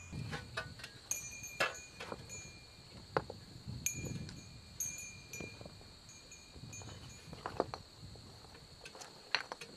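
Shovel digging in sandy soil: low scraping scoops broken by sharp, briefly ringing clinks.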